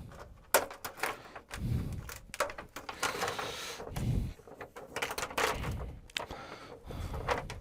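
Adhesive tape being peeled back from a TV's LED backlight strip, with a short tearing hiss about three seconds in, amid scattered handling clicks and a few soft knocks.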